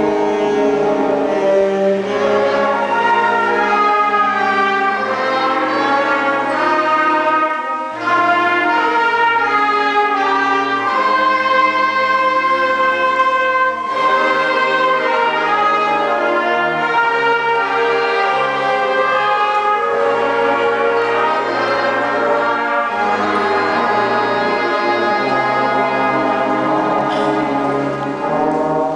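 Youth ensemble of bowed strings, woodwinds and brass playing held notes and chords together, with short breaks between phrases about 8 and 14 seconds in and again near the end.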